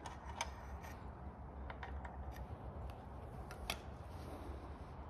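A few faint, light clicks and ticks, the sharpest about half a second in and again around three and a half seconds, over a low steady hum.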